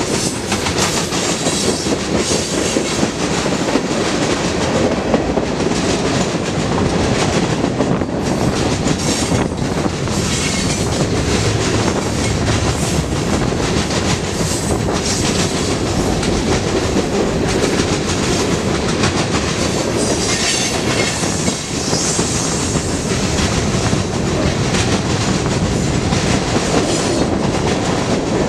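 Loaded freight cars rolling past close by: a steady rumble of steel wheels on rail with the clickety-clack of wheels crossing rail joints.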